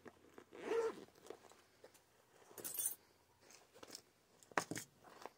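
Hands rummaging in a fabric zippered pouch of crochet tools: zipper, rustling cloth and small tools clicking together, in a few short scratchy bursts.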